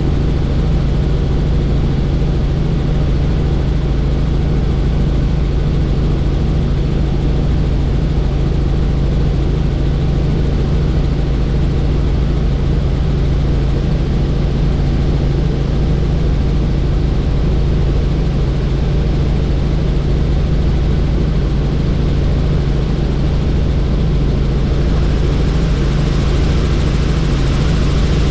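Helicopter in flight with the doors off: the rotor and turbine give a steady, loud low drone, with wind rushing past the cabin. The hiss of the wind grows louder near the end.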